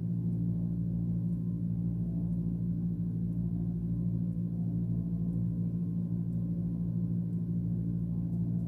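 A steady low hum made of several fixed pitches, unchanging throughout.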